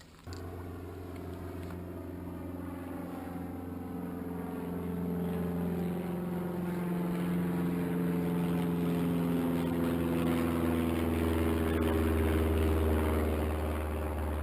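Steady engine drone with a deep hum and several pitched tones, slowly drifting in pitch and growing louder, starting and stopping abruptly.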